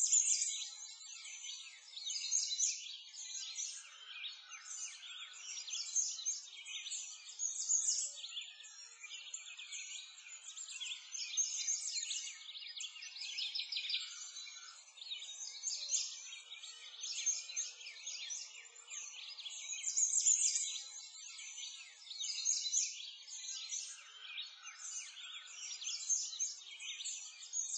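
Birds chirping in a dense, continuous chorus, all high-pitched, swelling and fading every couple of seconds.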